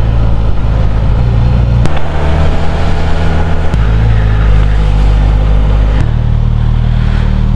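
Suzuki GSX-S1000GT inline-four motorcycle engine running at low road speed. Its note changes abruptly three times, with a click at each change.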